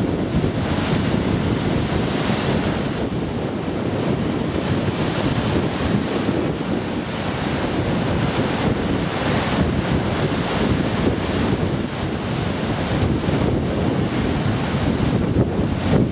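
Storm surf breaking on rocks and against a harbour breakwater, a loud continuous wash of breaking waves, with strong wind buffeting the microphone.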